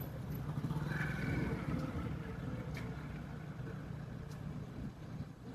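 Steady low rumble, like a running engine, with a brief higher tone about a second in.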